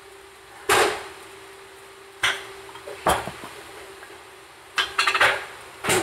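Kitchenware clattering: several sharp knocks of dishes or utensils being handled, with a quick run of clatters near the end, over a steady hum from the microwave running.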